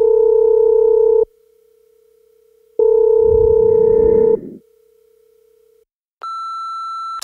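Telephone ringing tone heard twice, each ring about a second and a half long, with a low rumble under the second ring, then a single long higher-pitched answering-machine beep near the end, the cue for a voicemail greeting.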